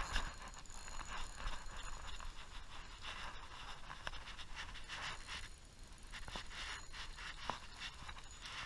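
Spinning reel being cranked and the rod handled while a hooked fish is reeled in: a run of irregular scratchy rustles and small clicks.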